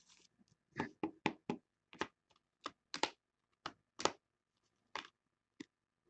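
Hard plastic card holders clicking and knocking against each other as a stack of cased trading cards is shuffled through by hand: about a dozen sharp, uneven clicks.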